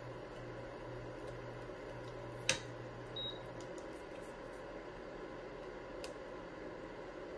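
Induction cooktop being switched off: a sharp click, then a short high beep, after which the hob's steady low hum and high whine stop.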